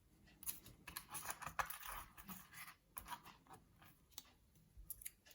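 Faint clicking and scraping of small metal lock parts being handled as a dimple lock is taken apart: dense scratching with clicks for the first couple of seconds, then a few scattered single clicks.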